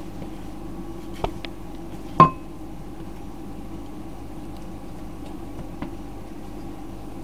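A sharp clink of a dish being knocked, ringing briefly, about two seconds in. Before it come a couple of light clicks of kitchenware being handled, all over a steady background hum.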